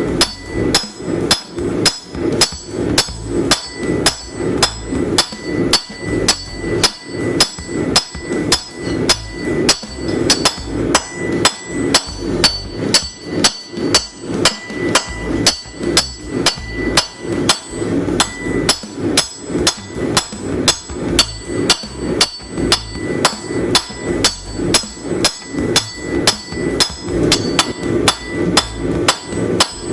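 Hand hammer forging a railroad spike, striking the steel on the anvil in a steady rhythm of about two blows a second, each blow with a metallic ring.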